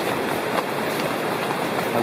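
Steady rushing of a fast mountain creek, an even hiss of moving water.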